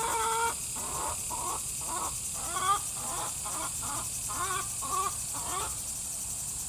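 An animal giving about ten short, caw-like calls in quick succession, roughly two a second, over a steady high-pitched insect drone.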